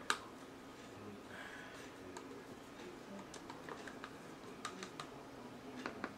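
Light clicks and taps of a plastic bottle bottom and a paint stir stick being handled, with one sharper click right at the start and a scatter of small ticks later on.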